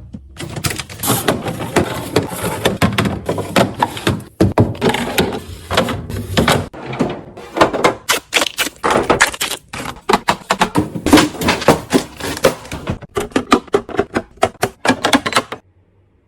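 Quick taps, knocks and clatter of food containers and packaging being handled and set into a fridge while it is restocked. The sound stops suddenly near the end.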